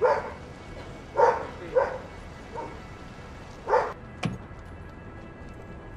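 A dog barking, about five short barks spaced roughly a second apart, then a single sharp thud about four seconds in.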